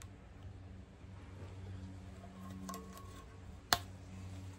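Quiet handling of the metal parts of a Mazda 13B Renesis rotary engine as the end iron is lifted off the rotor housing: a few light clicks and a brief faint ring, then one sharp metallic clink a little past three and a half seconds in, over a faint low hum.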